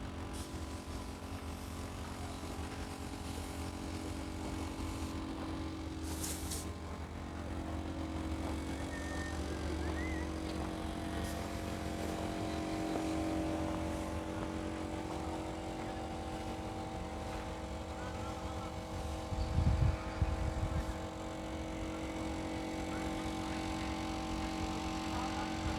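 Road traffic: a steady hum of vehicle engines, with a louder low rumble lasting a second or so about three quarters of the way through.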